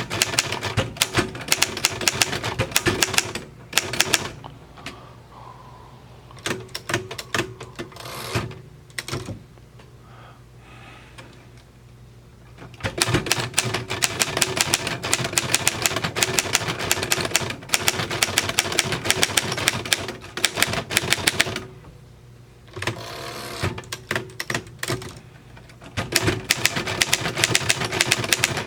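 Royal FP manual desktop typewriter being typed on: quick runs of type-bar strikes on the paper, broken twice by pauses of a few seconds.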